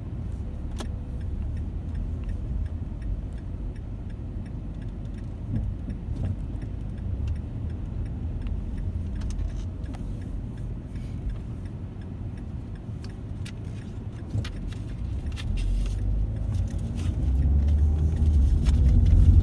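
Inside a moving car: steady low road and engine rumble, with scattered light clicks and rattles. The rumble grows louder over the last few seconds, as the car speeds up.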